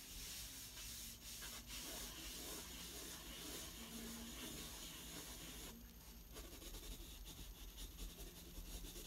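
Koh-i-Noor Triograph 2B graphite pencil scratching and rubbing faintly across watercolor paper as it sketches and shades, pausing briefly about six seconds in.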